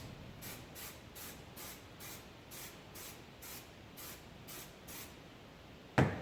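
An aerosol can of 3M 90 spray adhesive giving about a dozen short hissing sprays, roughly two a second. A sharp knock comes about six seconds in.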